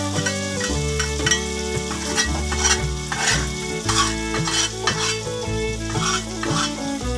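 Metal spoon scraping and tapping in a stone mortar in repeated short strokes, with oil sizzling in a wok, over background music of sustained changing notes.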